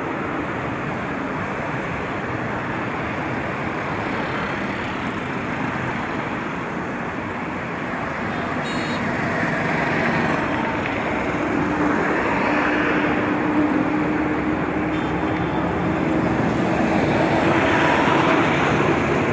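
Steady road traffic and vehicle noise, with a steady engine drone joining it about halfway through as it grows louder.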